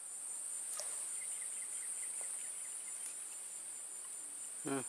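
Steady, high-pitched drone of insects calling, unbroken throughout, with a faint click about a second in.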